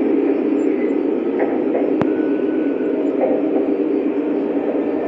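Lionel O-gauge Amtrak train running steadily around the layout: a continuous rumble of wheels on the rails as the lighted passenger coaches pass close by, with one sharp click about two seconds in.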